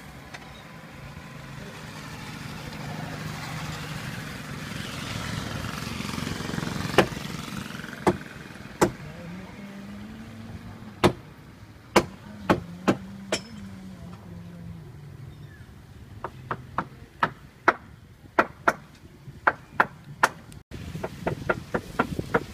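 Busy market street: a motor vehicle's engine passes, its hum swelling and then rising and falling in pitch. Over it comes a series of sharp, loud knocks, a few spaced out at first and then in a quick irregular run near the end.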